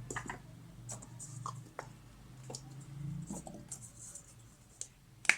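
Hands handling the plastic parts of an LED bulb: a few light scrapes and taps, then one sharp click near the end.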